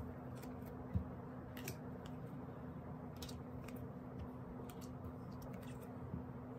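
Transparent plastic photo cards handled and set down on a desk: scattered light clicks and taps, one a little louder about a second in, over a faint steady hum.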